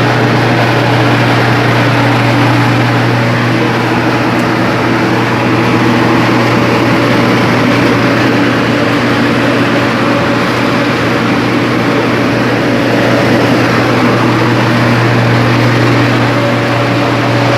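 Box-type dryer (secador caixa) running: a steady, loud machine drone with a strong low hum and a few steady higher tones, unchanging throughout.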